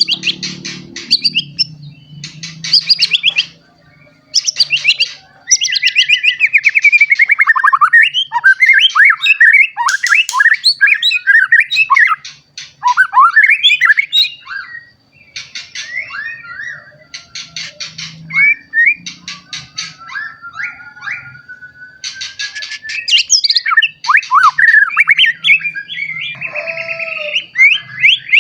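Young white-rumped shama singing a long, varied song of rapid chattering trills, sliding whistles and harsh notes, broken by short pauses.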